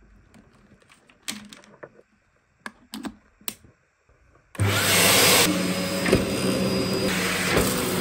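A few sharp clicks and knocks from handling, then, about halfway through, the Dyson DC04 upright vacuum cleaner's motor switches on suddenly and runs steadily at full power with a hum and a high whine.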